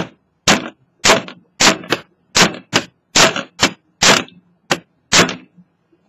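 Small hammer striking the end of an electric fan motor's steel shaft, about a dozen sharp blows at roughly two a second, each ringing briefly. The blows drive the shaft back through the squirrel-cage rotor, which had shifted along the shaft and was rubbing against the motor housing.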